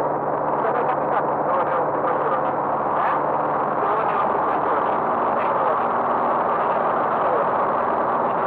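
Steady drone of a light aircraft's piston engine and propeller, heard inside the cabin.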